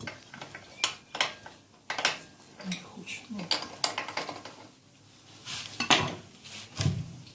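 Metal hand tools and engine parts clinking and clicking irregularly as a Dnepr motorcycle engine is dismantled.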